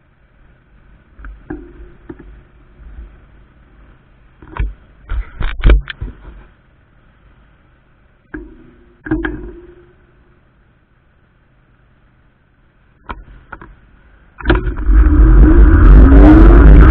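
Street traffic heard while waiting at a crossing: cars passing and a few sharp knocks and clicks. Near the end a loud, steady rush of wind and road noise sets in as the fat-tyre e-bike pulls away.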